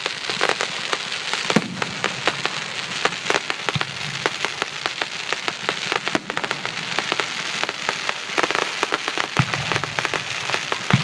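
Fireworks going off: a dense, continuous crackling of many small sharp pops, with a few deeper bangs now and then.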